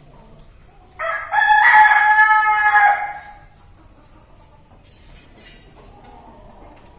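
A rooster crowing once, a loud call of about two seconds that starts about a second in.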